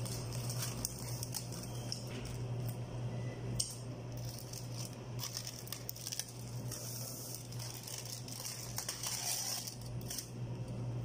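Aluminium foil crinkling and rustling as it is peeled back off a baking tray, over a steady low hum.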